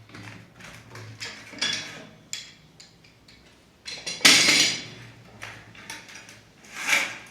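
Irregular clinks and knocks of hard objects, with two louder noisy bursts, about four seconds in and near the end.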